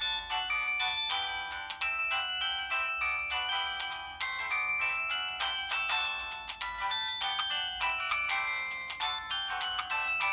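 Samsung Anycall SCH-W200 phone playing one of its built-in ringtones: a quick melody of many short notes, with little bass.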